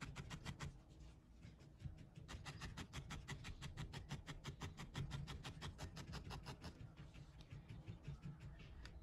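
A felting needle stabbing repeatedly into wool to shape a needle-felted dog's nose: a quick, even run of soft pokes, several a second, easing off briefly about a second in and again near the end.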